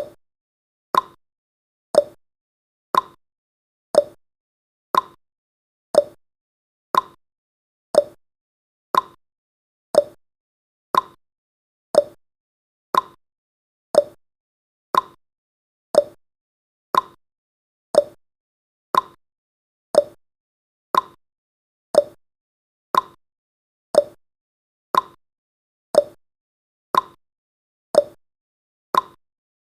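Countdown timer sound effect: a short, quickly fading blip once every second, evenly spaced, marking the seconds of the countdown.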